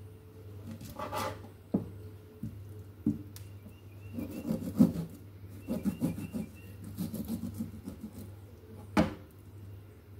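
Knife cutting and trimming raw kidney on a cutting board: scraping and rubbing strokes, with several sharp knocks of the blade against the board.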